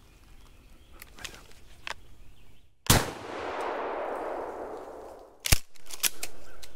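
Two gunshots about two and a half seconds apart, the first trailed by a long echo rolling away through the woods. A few light clicks follow the second shot.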